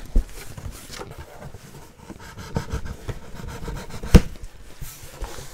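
Cardboard box being opened and handled: scattered rustles and light taps, with one sharp knock about four seconds in.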